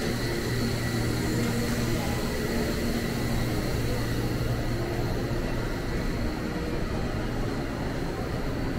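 Busy train station ambience: a steady low hum and rumble under a faint murmur of commuters' voices.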